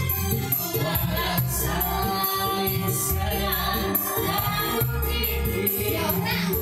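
Live dangdut music, amplified: a woman singing into a microphone over electronic keyboard backing with a steady beat.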